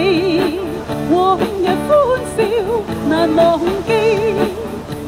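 Background song: a singer's melody sung with vibrato over instrumental backing.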